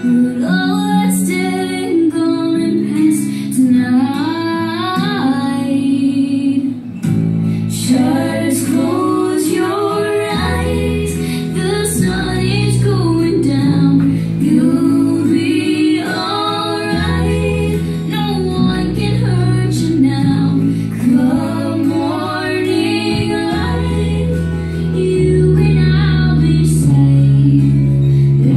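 Music: a woman singing a slow song over instrumental backing, with a deeper bass line coming in about ten seconds in.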